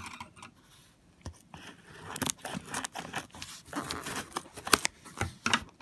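Taped cardboard shipping box being opened: packing tape and cardboard tearing and scraping, with irregular crackles and sharp clicks.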